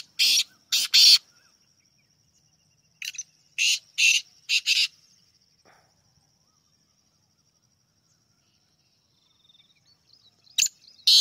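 Black francolins calling: three loud, harsh call phrases, each a quick run of four or five grating notes, with long pauses between them.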